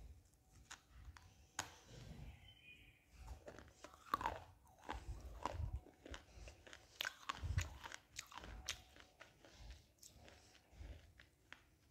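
A piece of black shale stone being bitten and chewed close to the mouth: irregular sharp crunches and crackles of the brittle stone breaking between the teeth. The loudest crunches come a little after four seconds in and again around seven to eight seconds.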